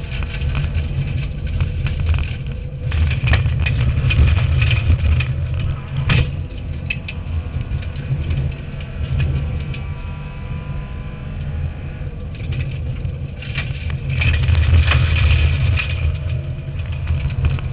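Subaru Impreza N4 rally car driven hard on a stage, heard from inside the cabin: a steady heavy engine and drivetrain drone with road and tyre noise. Twice it swells with a louder rasping noise for a couple of seconds, and a single sharp knock comes about six seconds in.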